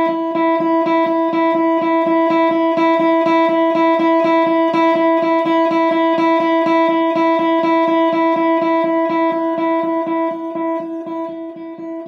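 Electric guitar's open high E string alternate-picked, down and up, in an even stream of about four to five strokes a second on the one steady note. The playing fades near the end.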